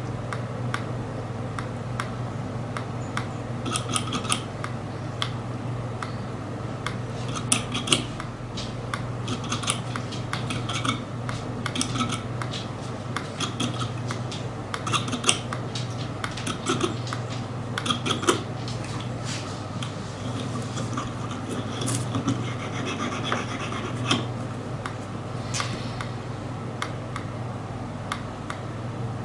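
Irregular small clicks and scrapes of metal work on the single coil of an EHPro Bachelor X RTA while the freshly fitted 0.27-ohm coil is dry-fired (glowed in). A steady low hum runs underneath.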